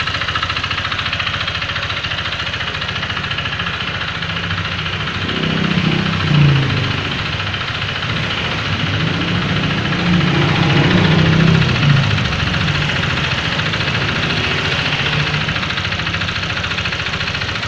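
Honda Vario 125 single-cylinder scooter engine idling with a rough, diesel-like knock, a couple of brief swells in level partway through. The noise comes from the connecting rod, suspected of being badly worn and loose.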